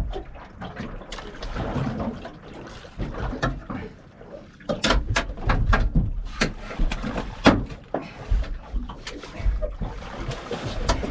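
Water splashing and a run of sharp knocks and clunks against a small boat while a large gummy shark is gaffed and hauled aboard, the knocks coming thickest midway through.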